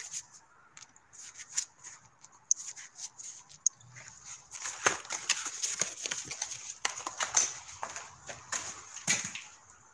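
Scattered light clicks and rustling at an irregular pace, getting busier after the first couple of seconds: handling noise from the recording phone being moved.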